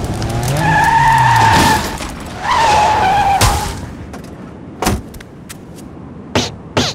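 Cartoon sound effect of a car pulling up: engine revving, then two long tyre screeches as it skids to a stop, ending in a thump about three and a half seconds in. A few short, sharp knocks follow near the end.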